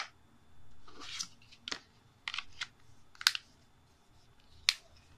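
White plastic back cover of a Samsung Galaxy J5 being pressed onto the phone, its clips snapping into place in several sharp clicks, with a brief scrape of plastic sliding over plastic about a second in.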